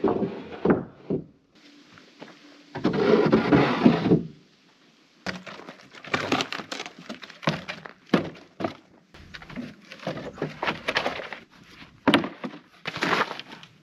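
Repeated wooden knocks and clatter, with a stretch of scraping about three seconds in, from fresh-sawn framing lumber being handled and a wooden cable spool being rolled over the ground and stood upright.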